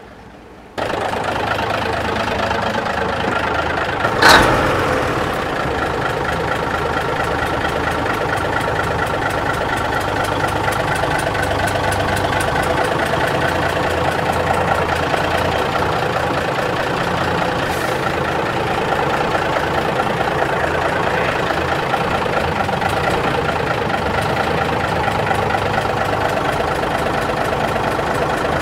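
1950s Euclid off-road truck's diesel engine idling steadily, coming in abruptly about a second in. There is one sharp bang about four seconds in.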